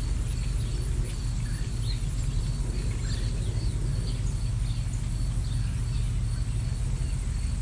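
Songbirds chirping in short scattered calls over a steady low rumble.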